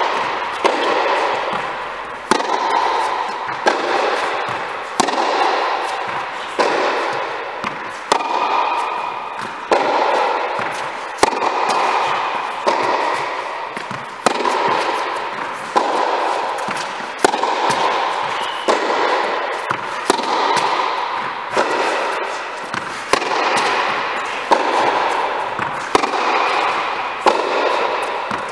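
Tennis ball struck back and forth in a rally, a sharp racket hit about every second and a half. Each hit echoes and rings on strongly in a large indoor tent hall.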